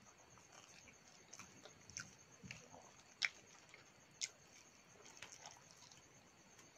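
Faint eating sounds of a person eating rice by hand: soft chewing and wet mouth smacks, scattered through, with two sharper clicks about three and four seconds in.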